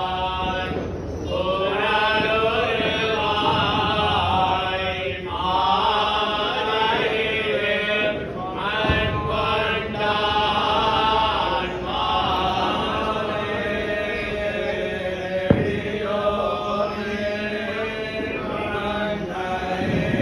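Men's voices chanting a devotional hymn together in steady phrases, each a second or two long with short breaks between. A single sharp click is heard about fifteen seconds in.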